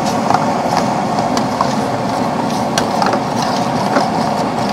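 Gravy for chilli-chicken lollipops cooking in a wok over a gas burner, nearly done: a steady burner roar with scattered light clicks.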